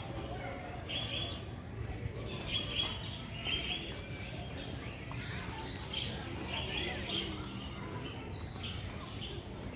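Birds chirping: short high calls repeated in clusters every second or two, over a low steady background hum.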